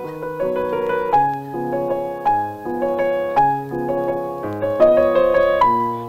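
Piano music from the film score: a steady run of chords, a new one struck about every half second.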